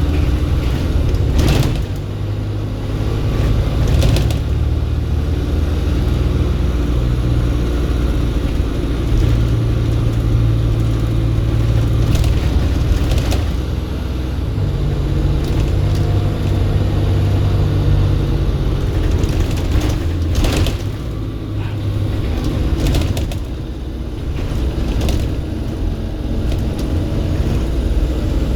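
Volvo B7RLE single-deck bus's six-cylinder diesel engine running under way, its low note stepping up and down several times as the bus accelerates and changes gear, with scattered knocks and rattles.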